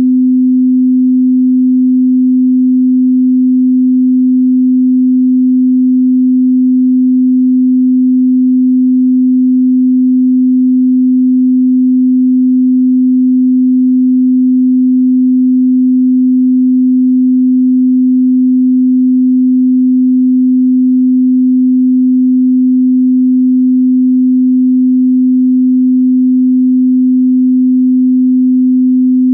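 A pure 255 Hz sine-wave test tone, held steady and loud at one pitch without any change.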